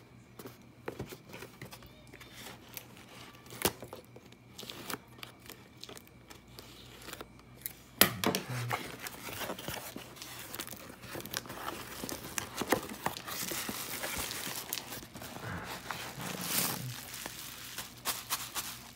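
A cardboard box and its packing being pulled open by hand: scattered clicks and small snips at first, then a sharp snap about eight seconds in, followed by steady crinkling and tearing of cardboard and wrapping.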